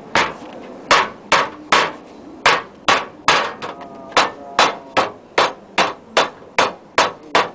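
Mallet hammering the folded edge of a terne-coated metal roof panel, closing the fold to 180 degrees: a steady run of sharp strikes, about two to three a second, some leaving a brief metallic ring.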